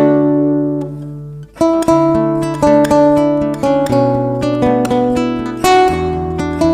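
Background music of plucked acoustic guitar, with a short pause about one and a half seconds in before the notes pick up again.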